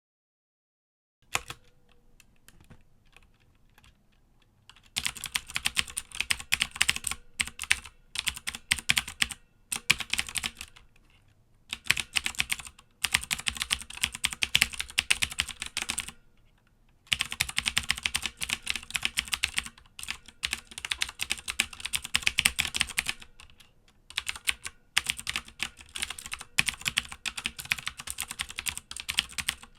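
Typing on a Filco Majestouch 2 mechanical keyboard with unlubricated Cherry MX Blue clicky switches. After a single keystroke and a few faint taps, bursts of fast clicking keystrokes start about five seconds in, broken by short pauses.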